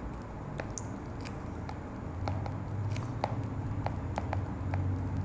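Stylus tapping and scratching on a tablet screen during handwriting: a string of irregular small clicks over a low hum.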